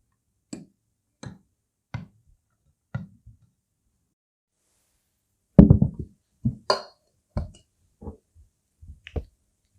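A series of separate knocks and taps of kitchen utensils and containers. There are four light taps at first, then a louder cluster of knocks about six seconds in, followed by several more.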